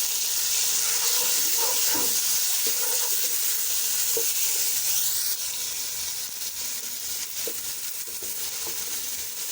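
Onions, garlic, ginger and spices frying in oil in a pot, sizzling steadily while being stirred after tomatoes and tomato paste go in. The sizzle drops a little about five seconds in.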